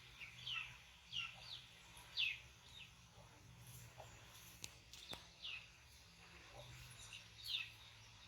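Faint, high chirping calls, each a quick downward slide, repeated irregularly about eight times, with a couple of sharp clicks about halfway through.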